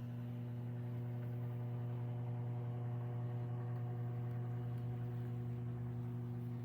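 Steady electrical mains hum with a low buzz, unchanging throughout.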